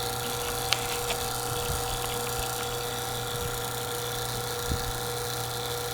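HVAC refrigerant vacuum pump running steadily with an even electric hum and a constant tone, evacuating an air-conditioning system down to a deep vacuum of a few hundred microns.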